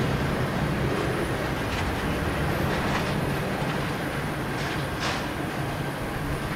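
Boeing 737-800's twin CFM56-7B turbofans at takeoff thrust as the jet lifts off and climbs away: a steady, loud jet roar heard from a distance, slowly fading.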